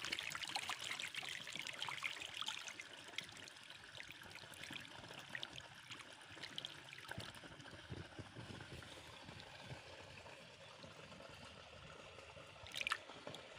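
Water splashing and trickling in a goldfish pond as the fish churn at the surface, busiest in the first few seconds. Near the end comes one short, louder splash.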